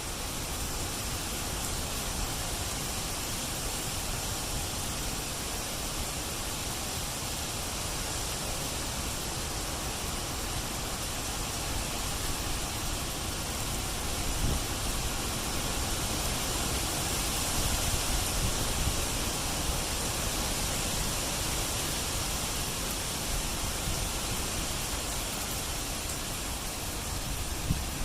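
Hurricane wind gusting, a steady rushing that swells to its strongest about halfway through and then eases a little, with a low rumble of wind on the microphone.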